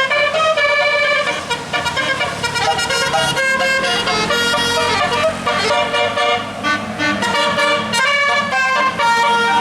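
Bus 'telolet' multi-tone horn playing a quick melody: a run of short notes that step from pitch to pitch, with several tones sounding together.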